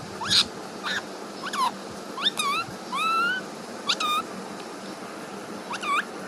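Young Alexandrine parakeet giving a string of short chirping calls, each a quick rising or falling note, with one longer rising call about three seconds in and a pause before a last call near the end.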